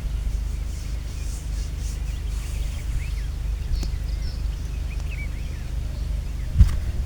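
Small birds chirping on and off over a steady low rumble, with a thump near the end.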